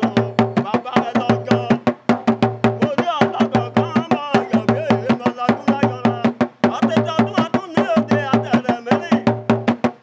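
Background music: a fast, even clicking percussion beat over steady low notes, with a wavering melodic line above.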